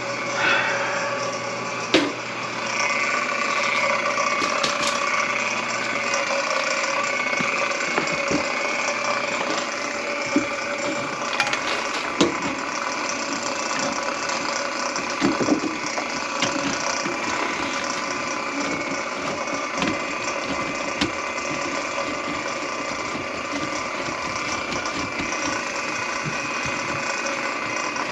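Electric drain-cleaning machine running steadily, its spinning cable rattling and clicking as it works into a drain line clogged with grease.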